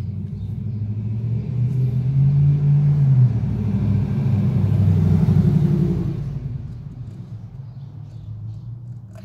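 A passing motor vehicle: a low engine rumble that swells, holds loudest through the middle, and fades away after about six seconds.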